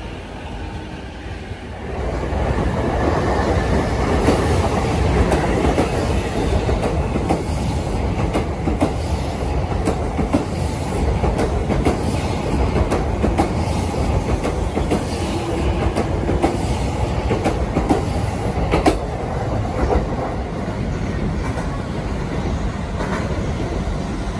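An electric passenger train running past close by on the track beside the platform, its wheels clacking over the rail joints. It comes in about two seconds in and stays loud, easing off slightly near the end.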